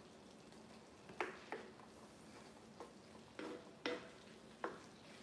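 Wooden spatula stirring a simmering ground-beef filling in a skillet, giving about half a dozen soft knocks and scrapes against the pan over a faint steady simmer.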